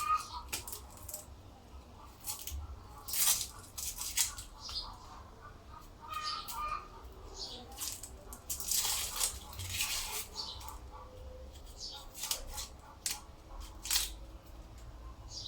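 Dry onion skins crackling and tearing as onions are peeled, in irregular short rustles and clicks.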